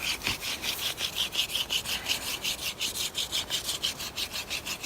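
Hand-drill fire-making: a wooden spindle spun back and forth between the palms in a wooden fireboard notch, rasping in an even rhythm of about five strokes a second. This is friction that generates heat toward an ember.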